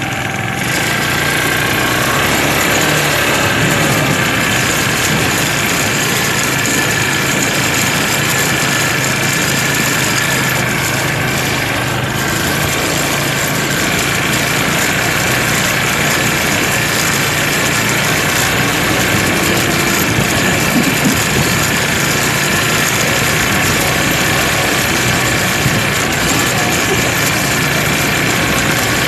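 Several ATV engines running steadily close by as the quad bikes ride in a group, with no clear revs or stops.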